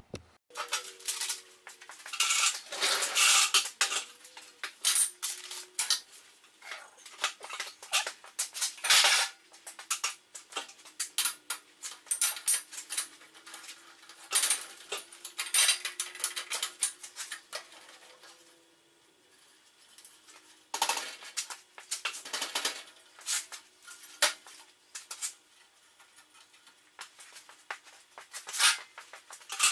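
Steel parts and hand tools clinking and clanking irregularly as the pieces are handled and fastened together.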